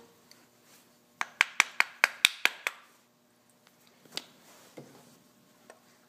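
Small metal carburetor parts clinking in a sheet-metal broiler pan: a quick run of about eight sharp, ringing taps over a second and a half, then a single clink about a second and a half later.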